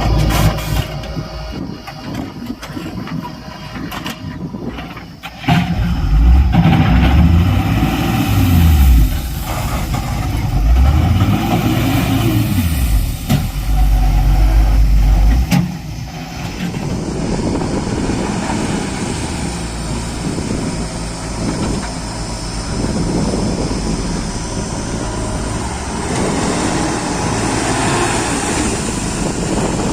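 JCB 3DX backhoe loader's diesel engine revving up and down several times as it works, then running steadier for the rest of the stretch.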